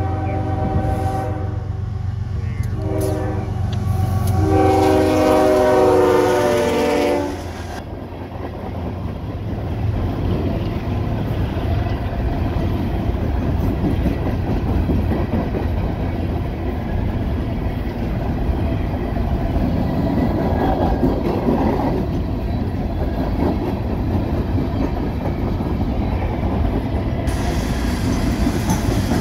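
CSX freight locomotives blowing a multi-note air horn in several blasts, the last one long, over a low diesel rumble as they go by. After about seven seconds, empty steel coal hopper cars roll past close: a steady rush of wheels on rail with clickety-clack over the joints.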